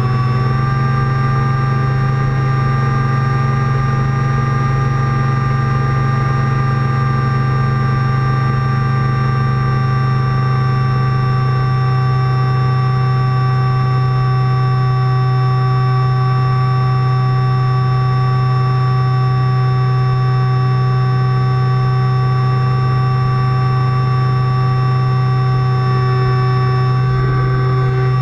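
A small propeller aircraft's engine running steadily at high power, heard from on board, one droning tone that holds its pitch with a brief dip near the end.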